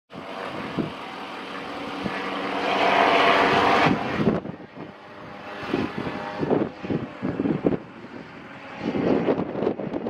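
ELA G8 gyroplane's engine and pusher propeller droning overhead, growing louder to a peak about three seconds in. From about four seconds on the engine is fainter, and gusts of wind buffet the microphone in irregular bursts.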